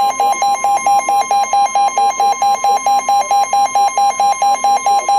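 Emergency weather alert tones: a steady high tone with a lower tone beeping over it, about four beeps a second.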